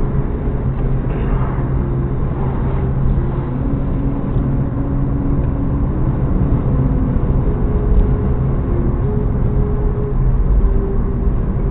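Car cabin noise while driving on a wet road: a steady low rumble from engine and tyres, with an engine hum that shifts in pitch a few times.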